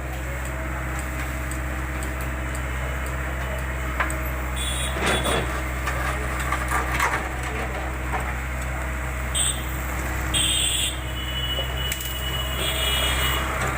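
JCB backhoe loader's diesel engine running steadily, with a sharp knock about four seconds in and several short high-pitched bursts toward the end.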